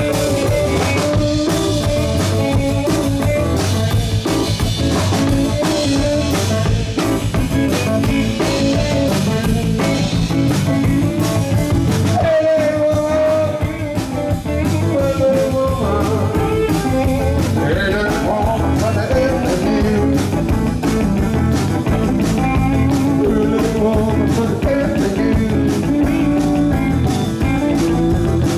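A rock band playing a bluesy number live, with drum kit and guitar. The drums drop out briefly about twelve seconds in, then the band comes back in.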